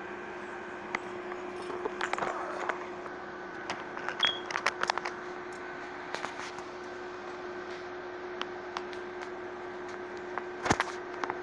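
Pet bird moving about its cage: scattered small clicks and rattles, with one short high chirp about four seconds in, over a steady hum.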